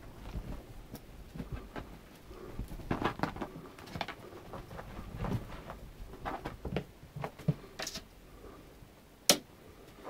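Ragdoll kittens playing on a quilted bed: scattered soft thumps and rustles of paws on fabric, with light scratchy clicks, and one sharp knock about nine seconds in.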